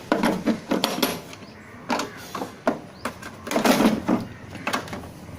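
Clicks, knocks and short scrapes of hand tools being handled in a moulded plastic tool case, with a longer scraping rustle a little past halfway, as a hammer is taken out.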